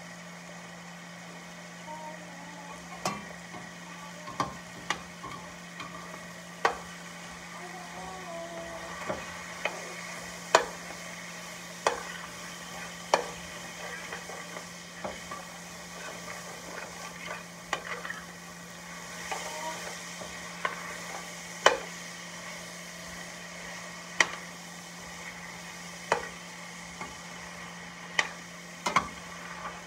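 A slotted metal spoon clanks and scrapes against a stainless steel pot while stirring vegetables frying over a steady sizzle. The sharp clanks come every second or two.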